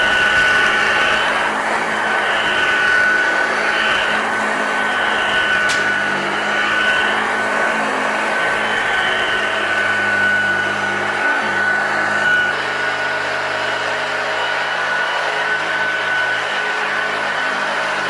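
1981 Hoover Junior U1012 upright vacuum cleaner running steadily, its motor a continuous rushing whine, with one sharp click a little over five seconds in.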